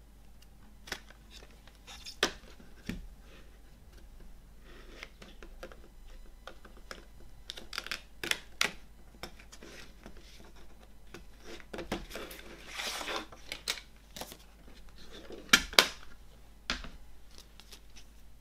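Plastic CD jewel case being handled and opened: a run of sharp plastic clicks and snaps from the hinged lid and tray, the loudest a quick pair about two-thirds through. A short sliding scrape in the middle as the cover booklet is worked out of the case.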